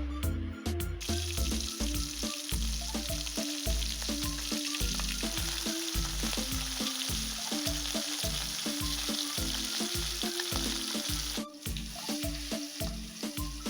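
Fish frying in hot oil, a steady dense sizzle that starts about a second in and drops away near the end. Background music with a steady beat plays underneath.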